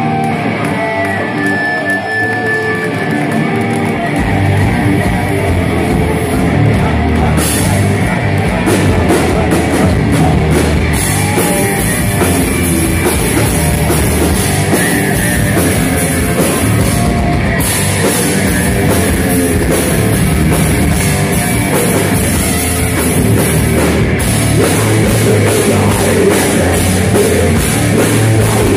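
Heavy metal played on drum kit and distorted guitars, dense and loud; the bass and kick drum come in heavily about four seconds in.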